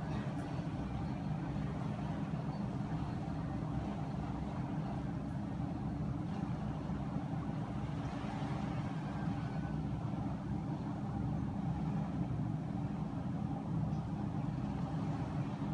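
Steady low rumble of a road vehicle running, even throughout with no sudden sounds.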